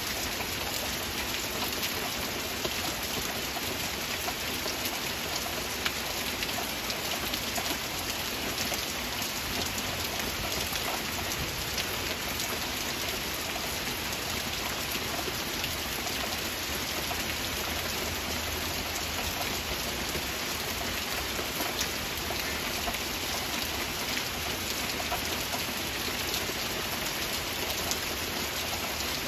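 Heavy rain falling steadily: an even, dense hiss of countless drops with no let-up.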